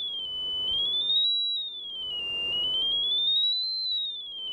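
Small speaker driven by a single-transistor class A amplifier, sounding a pure sine-wave tone from an oscilloscope's function generator. The high whistle-like pitch glides down, up, down and up again with brief holds in between as the generator's frequency knob is turned.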